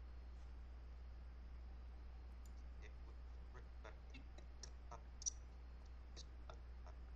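Faint scattered clicks of a computer mouse, one a little louder about five seconds in, over a steady low electrical hum.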